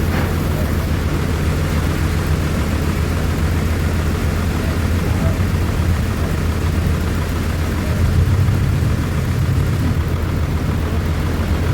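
Large sawmill machine running steadily with a low, even drone, briefly getting louder about eight seconds in.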